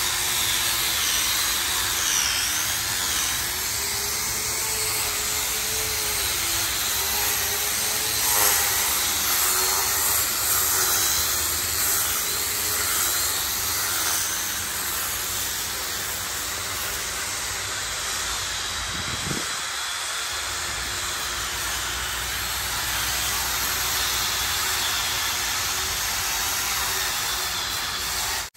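Electric sanding machine running steadily, sanding down the cured first coat of an epoxy floor paint; its motor pitch wavers up and down with the load.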